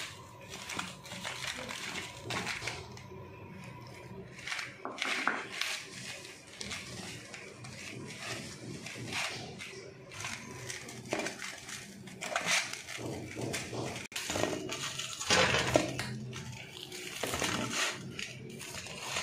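Hands rubbing and squeezing flour and ghee together in a stainless steel bowl, with irregular rustling and scraping of fingers against the metal and occasional knocks on the bowl, as the mixture is worked into dough. The scraping is loudest a little past three-quarters of the way through.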